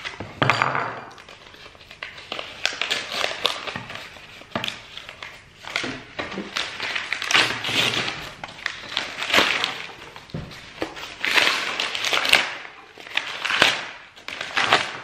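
White paper wrapping being torn open and crumpled by hand to free a metal licence plate: a long run of rips, rustles and crinkles.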